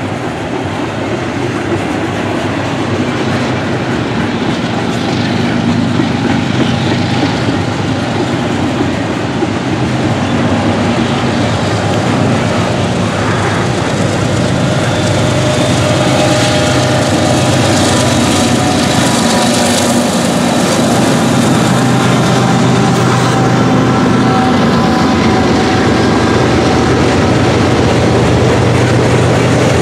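Freight train rolling past with steel wheels clacking over the rail joints. Partway through, mid-train diesel locomotives pass and add a steady engine drone, and the overall sound grows gradually louder.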